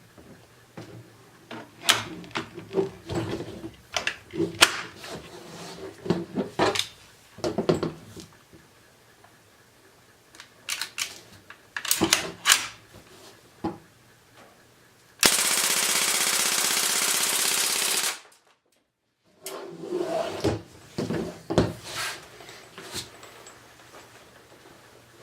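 MP40-replica .17 cal BB machine gun: scattered clicks and knocks, then about fifteen seconds in one continuous burst of automatic fire lasting about three seconds, which cuts off suddenly.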